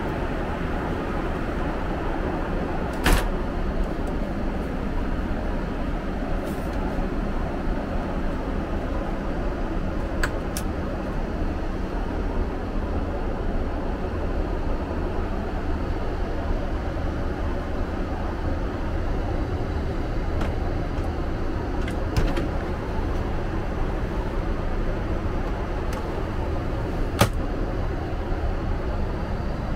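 Steady cabin noise of a Boeing 777-300ER airliner in cruise, a constant engine and airflow rush. A few sharp clicks stand out, about 3, 10, 22 and 27 seconds in, as the suite's fittings are handled.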